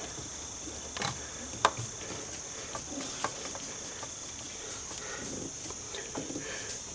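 A few sharp metallic clicks and taps from a fuel pressure gauge's hose fitting being handled and threaded onto the Schrader-valve adapter on a fuel rail, the loudest about one and a half seconds in. Under them is a steady high-pitched background drone.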